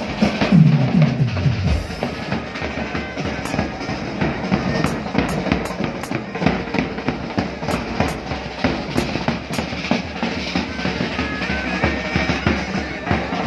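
A band of marching bass drums and smaller drums playing a fast, dense rhythm together, with a falling roll of low drum strokes in the first two seconds.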